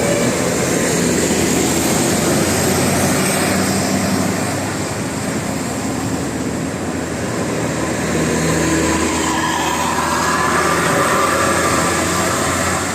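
Heavy road traffic close by: a large vehicle's engine and tyres making a steady rushing noise that eases a little partway through, with a faint pitched tone coming in near the end.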